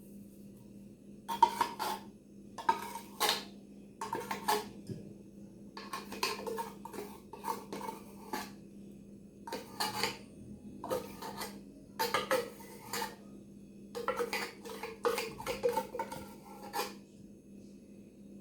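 A metal spoon clinking and scraping against a dish, in a long irregular run of knocks as the Nestlé cream is spooned out and worked in.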